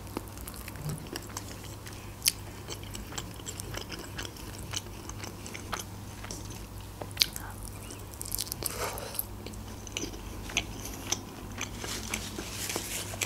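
Close-up eating sounds: biting and chewing a sauced chicken wing, with scattered sharp clicks and crunches, over a faint steady low hum.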